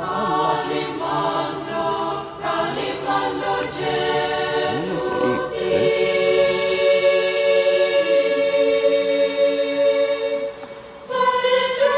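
Choral music: a choir singing held chords that change every second or two.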